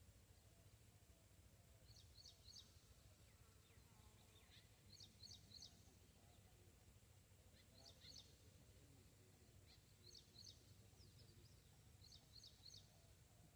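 Female francolin (teetar) calling faintly: about five phrases of three short, sharp, high notes, one phrase every two to three seconds, over a low background rumble.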